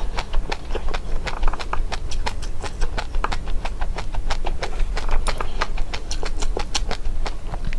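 Dry seeds being chewed close to the microphone: rapid, irregular crisp crunching, several sharp cracks a second.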